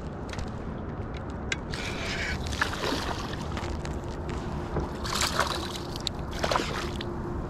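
Water sloshing and lapping against a kayak hull, with several sharp splashes as a hooked bass is fought on the line; one splash comes as the bass jumps clear of the water about six seconds in.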